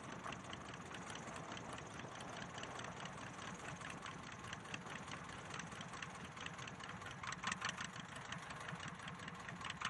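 Light aircraft's propeller engine idling as the plane taxis slowly, a fast, uneven puttering that grows a little louder and bumpier near the end.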